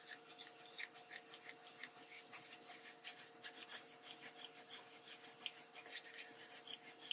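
A damp cloth scrubbing back and forth over embossed magazine paper in quick rasping strokes, several a second, lifting the printed ink off the image.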